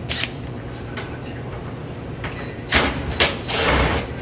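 A few sharp clicks and a short scraping rattle from screws being taken out of a clothes dryer's sheet-metal cabinet with a Phillips screwdriver, over a steady low hum.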